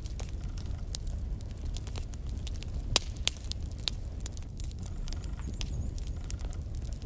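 Wood fire burning in a fireplace: a low steady rumble of flames with irregular sharp crackles and pops from the burning logs, the loudest pop about three seconds in.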